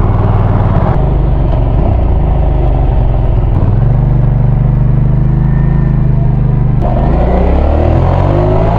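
Hyosung GV650's V-twin engine with its loud exhaust, heard from the rider's seat through a microphone inside the helmet, mixed with wind noise. The engine note holds steady through the middle, then rises near the end as the bike accelerates.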